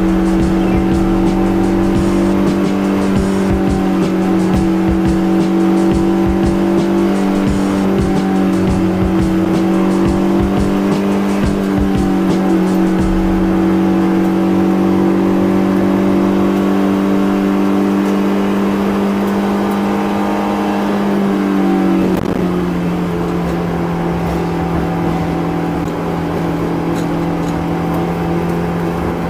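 Honda S2000's 2.2-litre four-cylinder engine running at a steady cruise, heard with road noise during a drive; its drone holds one pitch for most of the stretch, then slides lower about twenty-two seconds in as the car eases off.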